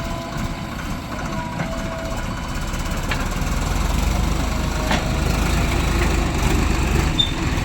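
Diesel engine of heavy earth-moving machinery running with a low rumble. It grows louder and heavier from about halfway in, as the engine revs up or takes load.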